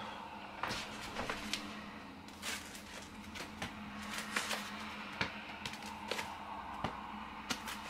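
Scattered light knocks and taps, about a dozen in all at irregular spacing, as inflatable vinyl rings are tossed and bounce off an inflatable flamingo ring-toss hat. A faint steady hum runs underneath.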